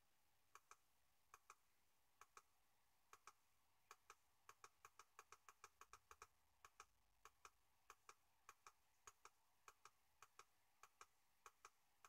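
Faint computer mouse clicks, mostly in quick pairs of press and release, repeated every half second to a second as the satellite loop is stepped frame by frame.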